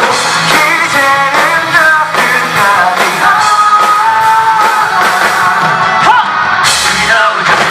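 Live rock band playing at full volume, with a man singing the melody over guitars and drums.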